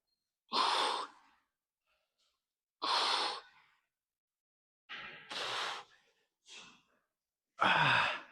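A man exhaling hard through a set of exercise reps: a sharp, breathy blow about every two to two and a half seconds, the last one carrying a bit of voice like a grunt.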